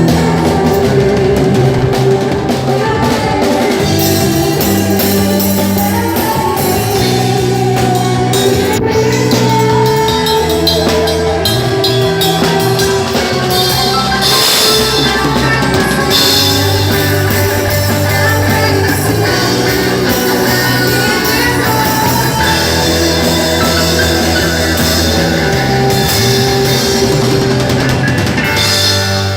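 A worship band playing a rock-style song with a drum kit, bass notes and sustained chords.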